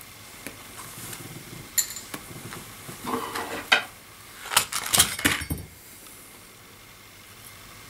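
A box of matches being handled: small rattling clicks and scrapes, a few at first, then a dense clatter from about three seconds to five and a half seconds in.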